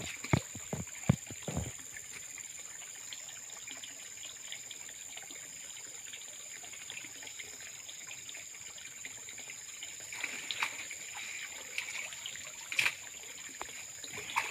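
Muddy pond water sloshing and trickling around a man wading waist-deep as he works hand-held net fish traps. A few dull thumps in the first two seconds, and light splashes and clicks near the end.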